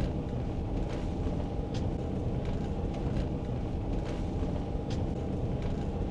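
Steady road and engine noise of a moving car heard from inside the cabin, a low even rumble with a few faint clicks.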